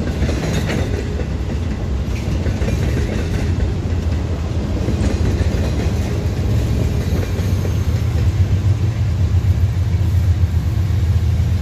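Freight cars rolling past at close range: a steady rumble of steel wheels on rail, with a few sharp clicks, growing slightly louder near the end.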